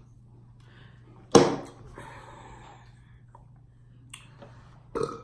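A single sharp click or knock about a second and a half in, fading quickly, with a smaller one near the end.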